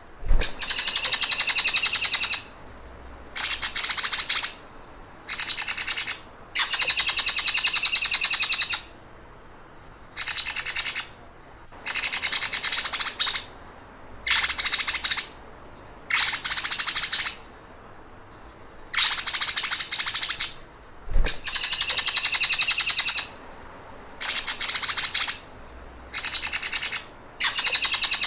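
A songbird's rapid, buzzy rattling trill, the 'sewing machine' call used to train cage birds, repeated in bursts of one to two seconds with short pauses between, about thirteen times.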